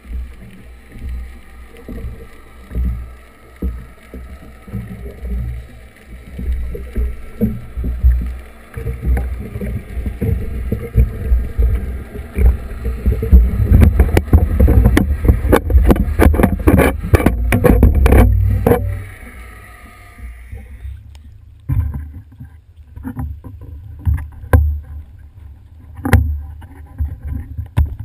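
Churning water and rumble from the propellers of twin Yanmar sterndrives, heard underwater through a camera housing, swelling to its loudest around the middle with a dense crackle of bubbles, then dropping away. A few separate knocks follow near the end.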